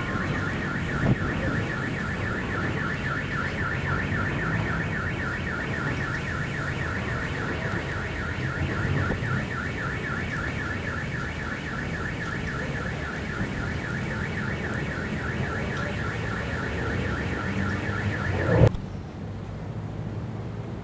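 Level-crossing warning signal ringing in a fast, steady repeating pattern, with road traffic rumbling under it. It cuts off abruptly near the end.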